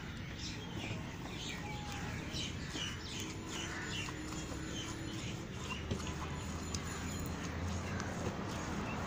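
Small birds chirping in quick, repeated short notes over a steady background hiss.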